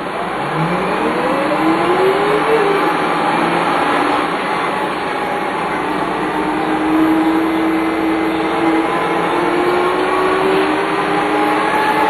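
Dennis Lance bus with a Cummins 6CT engine and ZF 4HP500 automatic gearbox accelerating, with the gearbox's whine rising in pitch. The whine drops at an upshift about two and a half seconds in, then climbs slowly again as the bus gathers speed.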